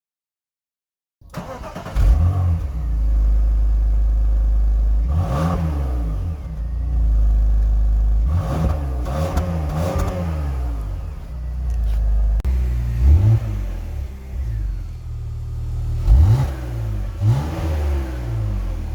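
BMW E46 320i inline-six engine heard through its exhaust, idling steadily and blipped in a series of short revs. Some of the blips come in quick pairs and runs.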